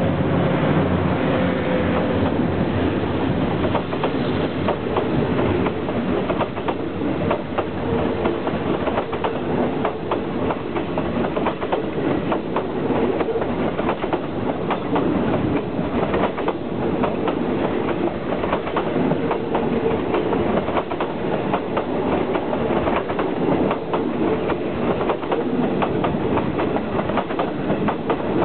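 Passenger coaches of a diesel-hauled train rolling past close by, their wheels clacking over the rail joints in a continual run of clicks. In the first couple of seconds, the hum of the Hitachi diesel-electric locomotive that has just passed fades out.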